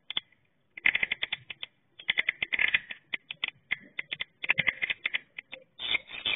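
Swiftlets twittering: bursts of rapid clicking chirps separated by short pauses, starting after a brief lull.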